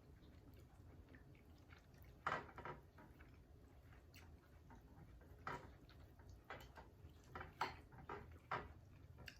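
Cutlery clinking and scraping against a bowl during eating, about half a dozen short, light clicks, most of them in the second half.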